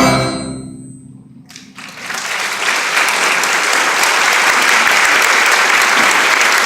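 The last chord of the orchestra and chorus dies away, and about a second and a half in an audience breaks into applause that swells and then holds steady.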